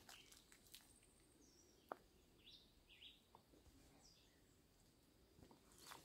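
Near silence: quiet outdoor ambience with a few faint, short bird chirps and a single faint click about two seconds in.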